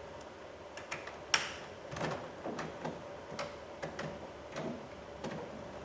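Hard plastic clicks and knocks from fitting the door's switch connectors and trim panel: one sharp click about a second and a half in, then a run of lighter clicks roughly every half second.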